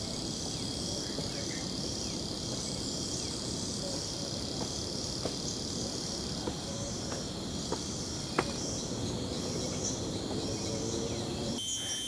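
Jungle crickets and other insects chirring steadily in high-pitched tones, with a few faint clicks. Near the end one much louder insect suddenly starts up, a steady buzz like electricity.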